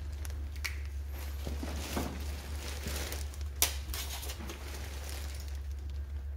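Small clicks and rustling from hands handling wiring and plastic connectors on a stripped scooter frame, with one sharp click about three and a half seconds in, over a steady low hum.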